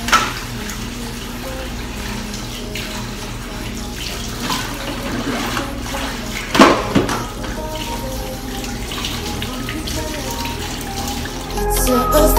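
Kitchen tap running into a sink while dishes are washed by hand, with two sharp clinks of dishes, the louder about six and a half seconds in. Background music comes in near the end.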